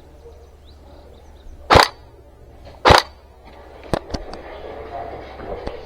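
Two loud airsoft gun shots about a second apart, followed by a few quieter, sharper clicks.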